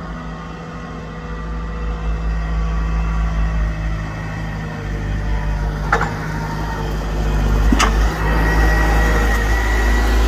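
Manitou MT 730 telehandler's diesel engine running at low speed as the machine drives past close by. Two sharp clicks come a couple of seconds apart midway, and a thin high whine joins the engine near the end.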